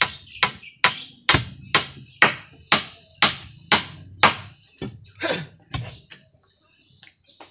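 A bamboo pole being chopped with a blade: a steady run of sharp strikes about two a second, then a few uneven ones, stopping about six seconds in.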